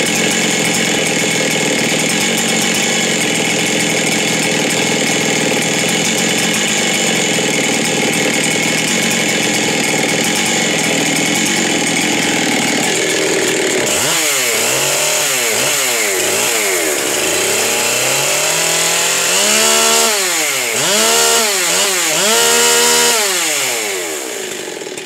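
West Coast ported Husqvarna 385 XP two-stroke chainsaw running loud and steady at high speed for about half the time, then revved up and down over and over in rising and falling sweeps, and cut off at the very end.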